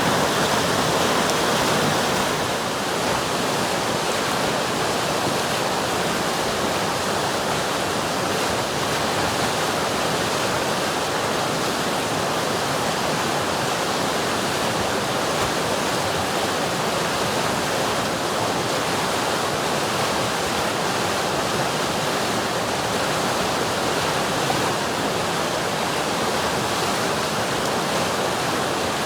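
A river's flowing water: a steady, even rush.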